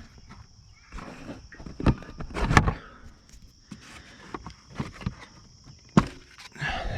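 Scattered clicks, knocks and rustling of hands working on a small motorcycle's body panels and fasteners, with a sharp knock about six seconds in.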